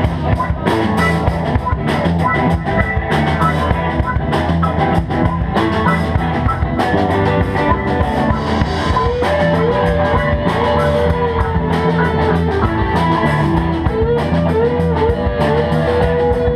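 Live rock band playing an instrumental passage on electric guitars, bass guitar, drum kit and keyboard, with a steady drum beat. A sliding lead melody line comes in about halfway through.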